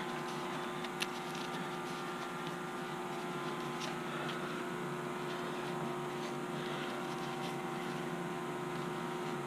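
A steady machine hum made of several even tones, with a few faint taps.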